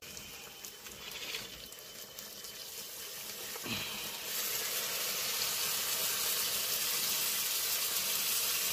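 Blood poured from a steel bowl into a hot iron karahi of frying goat offal. The liquid runs into the hot oil and sizzles, the hiss growing gradually louder.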